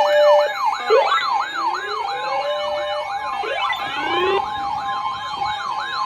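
Weather alert radios sounding their warning alarms together: a fast siren-like warble, about two sweeps a second, over a steady alert tone, with slower rising wails coming and going in the first few seconds. This signals an incoming severe weather warning broadcast.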